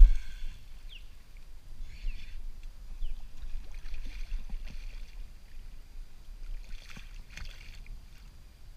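A hooked redfish splashing and thrashing at the surface in short bursts, loudest about four seconds in and again around seven seconds in, as it is played up beside a canoe. A hard knock sounds right at the start, over a low rumble.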